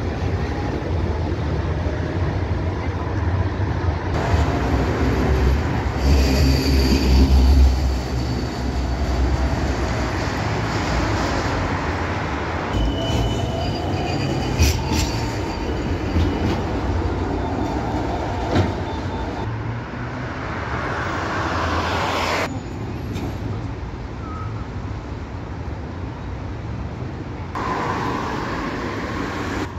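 Trams running through a tram stop: the heavy low rumble of steel wheels on rail, loudest a few seconds in, with brief high wheel squeals and the slowly rising and falling whine of the traction motors.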